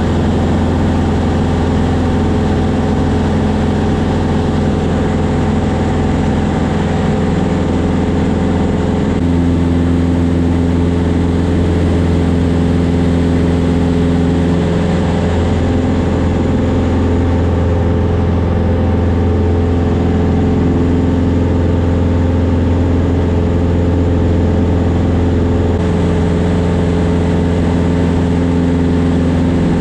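Cockpit drone of a Van's RV-14A's four-cylinder Lycoming engine and propeller in flight, loud and steady. Its pitch shifts slightly about a third of the way in and again near the end.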